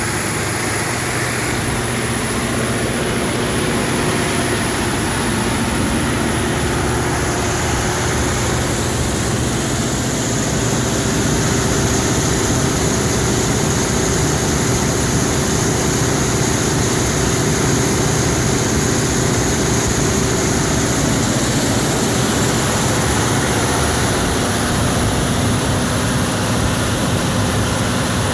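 Caterpillar 3508 V8 diesel engine of a 1000 kW standby generator running steadily at full load under a load test: a loud, even drone with a few steady tones on top.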